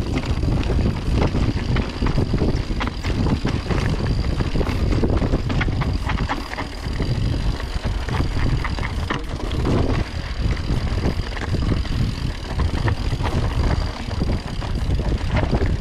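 Orbea Oiz full-suspension mountain bike descending a rocky, loose trail: a heavy rumble of wind on the microphone over tyres rolling across stones, with frequent rattles and knocks from the bike.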